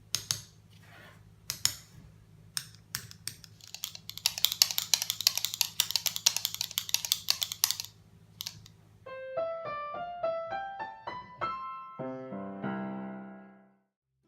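Foam alligator noisemaker clacking, its two large buttons snapping together: a few single clacks, then rapid clacking for about four seconds. Then a short piano-like tune of rising notes, ending on a chord that fades out.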